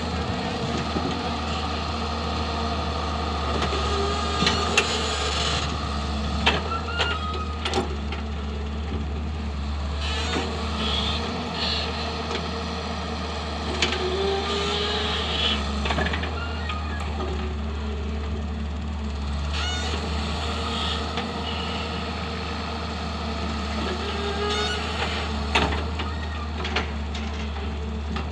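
Excavator's diesel engine running steadily at working revs, with short rising whines now and then and a few sharp knocks as it digs.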